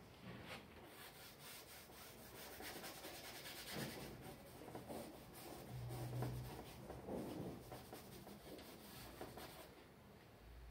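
Quick scrubbing strokes across a painting canvas, faint and dense, starting about a second in and stopping shortly before the end.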